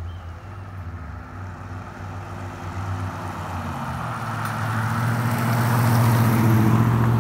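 A motor vehicle's engine hum with tyre noise, growing louder through the second half as it comes closer on the road and loudest near the end.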